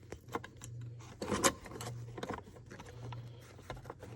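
Scattered clicks and knocks of a metal bracket being handled and fitted against the seat frame, the loudest knock about a second and a half in. A low hum comes and goes underneath.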